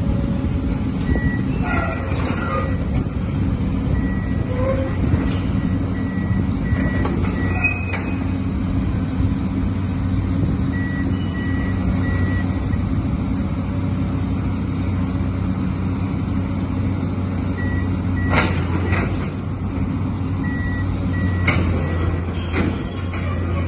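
Excavator's diesel engine running steadily, with a few sharp metallic knocks near the end.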